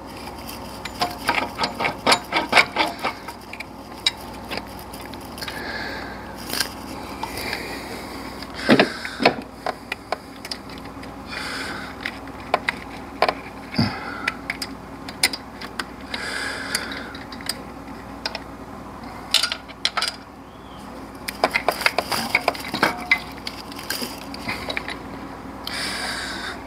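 Hand tools working on engine parts: runs of quick clicking, a few seconds in and again past twenty seconds, with scattered metallic clinks and knocks in between.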